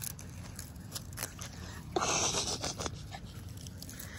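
Small puppies scuffling and mouthing close by in grass and dry leaves: soft rustles and light ticks, with a louder rustle lasting just under a second about two seconds in.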